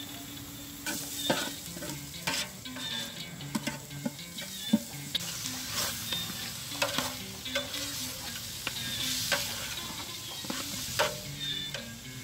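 Raw meat pieces frying in oil in a pan, sizzling, while a metal spoon stirs them, scraping and knocking against the pan many times.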